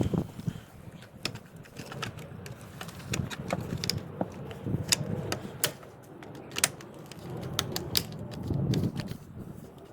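Irregular hard plastic clicks and rattles with low handling knocks, as the black plastic bottom cover of a Toyota 4Runner side mirror is pushed and snapped back onto its clips.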